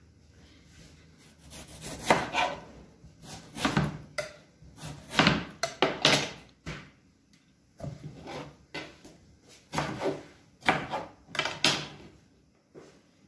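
Kitchen knife cutting tomatoes on a plastic cutting board: a series of irregular knocks as the blade goes through the tomato onto the board, with short scraping sounds between them.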